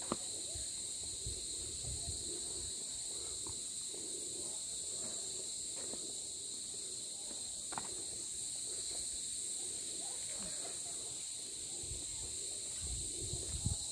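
Steady, high-pitched chorus of insects droning on two pitches without a break. Faint distant voices, a few low rumbles of wind or handling on the microphone, and a couple of light clicks lie beneath it.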